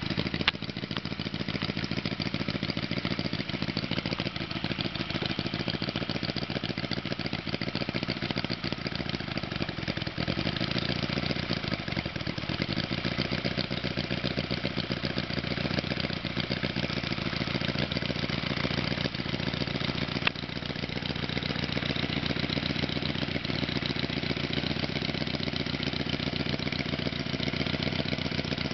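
Four-stroke four-cylinder 40 cc engine of a handmade scale model Caterpillar Sixty crawler tractor, running steadily with a fast, even firing beat.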